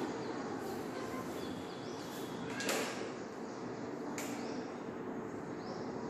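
Steady background hiss and hum of a room, with faint short high chirps and two sharp clicks, one about two and a half seconds in and one about four seconds in.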